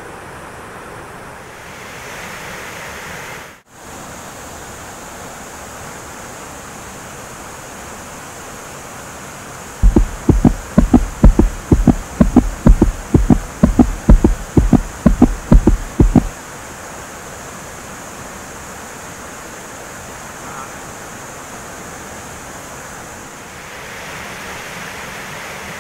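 Waterfall rushing steadily, with a brief dropout near the start. About ten seconds in, a rapid run of loud, low thumps, about four a second, lasts some six seconds.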